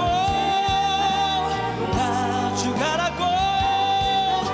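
A male vocalist singing a Korean rock ballad live over a band backing, holding two long notes with vibrato.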